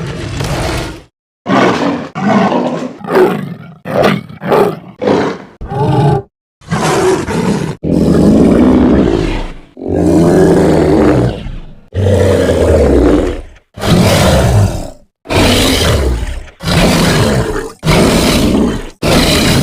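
Cartoon monster roars and growls from a sound-effects set, played one after another with clean silent gaps between them. There is a quick run of short growls and snarls first, then longer roars lasting a second or two each.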